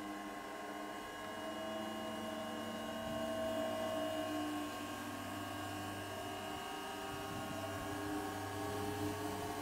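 Asahi-type high-speed tubular centrifuge (SC Techno CS83) running: a steady hum with several whining tones that waver slightly in pitch.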